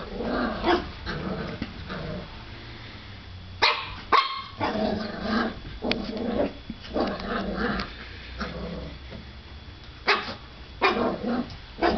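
Puppy barking in short, repeated bouts, with growls in between, at its own reflection in a mirror. A few sharp barks come about four seconds in and again near the end.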